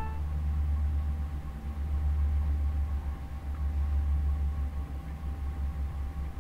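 Steady low rumble with a faint thin steady tone above it: background hum in a room.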